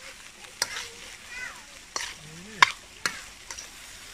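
Four sharp clicks or knocks over a low hiss, the loudest a little past halfway.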